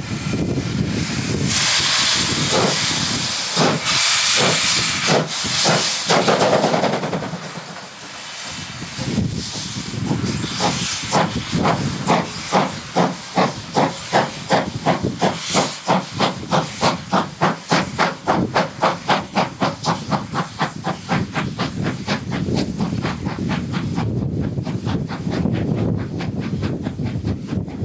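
Class 52 two-cylinder 2-10-0 steam locomotive working under load. At first come loud blasts of hissing steam, then a steady exhaust beat of roughly two to three chuffs a second that blurs into a rumble and fades as the engine moves off.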